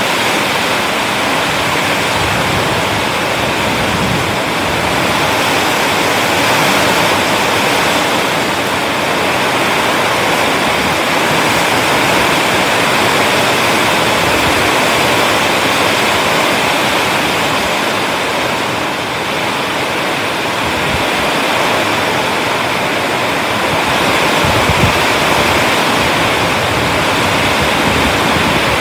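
Heavy rain pouring steadily in strong wind, a dense even hiss, with a few brief low gusts.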